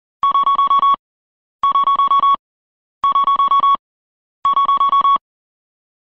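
Nippon Signal-type platform screen door closing warning chime: four bursts of rapid high beeps, each burst under a second long, repeating about every one and a half seconds. Recorded clean from the chime's electronic sound unit itself.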